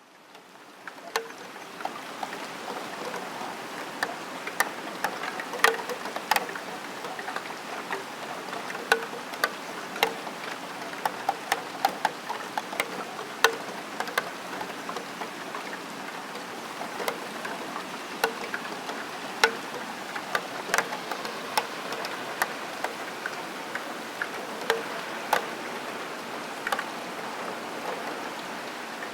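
Steady rain, fading in over the first second, with irregular sharp taps of drops striking a steel window sill.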